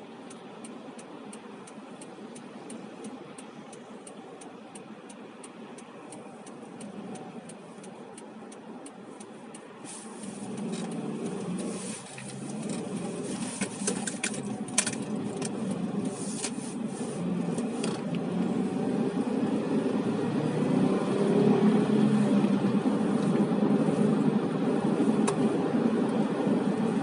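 Car cabin sound. The car stands with its turn signal ticking regularly, then pulls away about ten seconds in. Engine and road noise grow steadily louder as it gathers speed.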